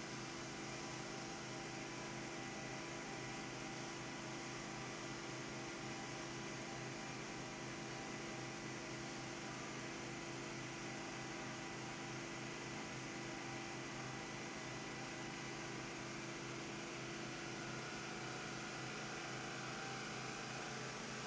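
Steady hum and hiss with several unchanging tones and no other events.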